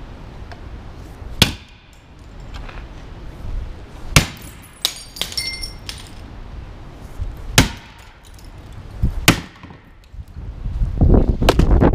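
Sharp knocks and clinks of a wooden police baton being struck against things, about six hits spaced a second or two apart, a few near the middle with a brief ringing. Wind rumbles on the microphone near the end.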